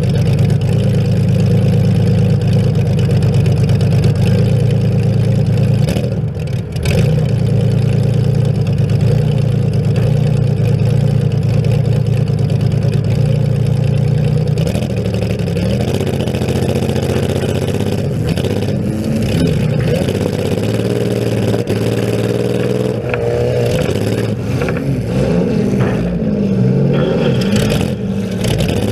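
Compact demolition derby car's engine, its open exhaust pipes sticking straight up through the hood, runs loud and steady at idle and falls off briefly about six seconds in. From about halfway on it revs, its pitch rising and falling as the car gets moving.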